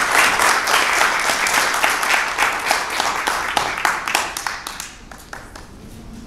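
Small group applauding, the clapping dying away about four to five seconds in.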